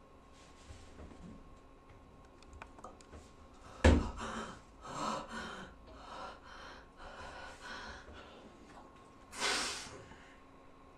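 A woman sobbing. There is a sudden sharp gasp about four seconds in, then a run of breathy sobs, and one long gasping breath near the end.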